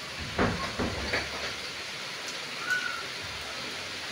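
Steady medium monsoon rain, an even hiss, with a few low thumps and a rumble about half a second to a second and a half in, and a brief high tone just under three seconds in.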